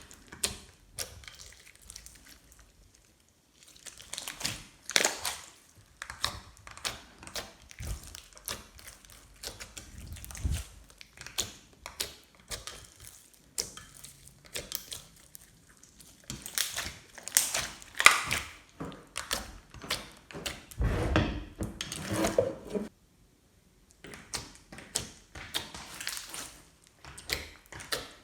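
Slime being squeezed and kneaded by hand, making a quick run of sticky clicks and pops, with a fuller squelch about three quarters of the way through.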